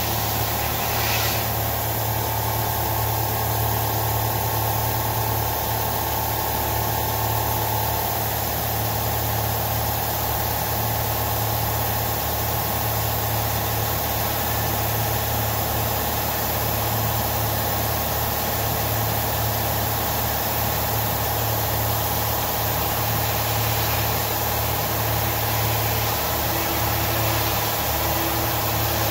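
Grizzly G0704 milling machine converted to CNC, its spindle running and cutter working through an aluminium extrusion while coolant sprays onto the cut. A steady hum with a constant whine and hiss, no pauses.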